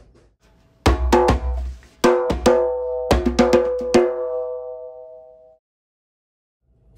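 Short intro music sting: three quick clusters of drum hits with sustained chords, the last chord ringing out and fading away.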